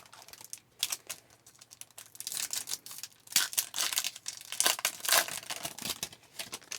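A trading-card pack's foil wrapper being torn open and crinkled, in a dense run of sharp crackles that is thickest in the middle.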